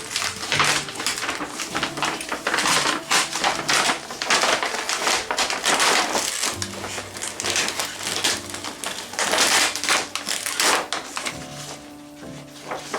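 Plastic reflector sheet (the white paper behind the LED backlight strips) crackling and rustling as it is peeled off the TV's backlight panel, in a dense run of sharp crinkles, with soft background music underneath.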